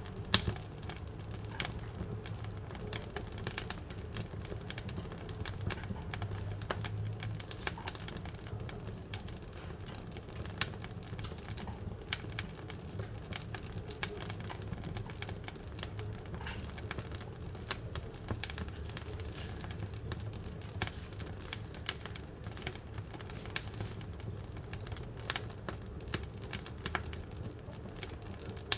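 Wood fire burning in a wood-burning cookstove, crackling with many sharp irregular pops and snaps over a low steady rumble of the flames.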